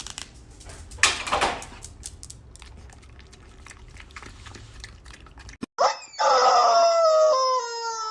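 A pet's long, drawn-out howling cry that starts about six seconds in, high at first and settling a little lower, after a few seconds of faint clicks and rustling.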